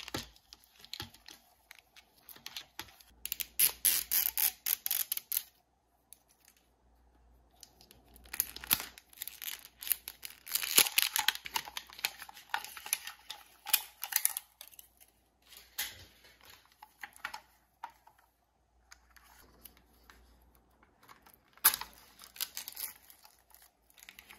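Crinkling and tearing of the plastic wrapper on a Mini Brands capsule ball, with clicks and rustles as the capsule is pried open and its segments are unfolded. The sounds come in several bursts with quiet gaps between.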